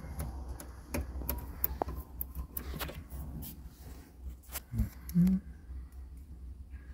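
Scattered small clicks and taps of hands working plastic wiring connectors and tape in a dashboard, with a dull knock about five seconds in, over a low steady hum.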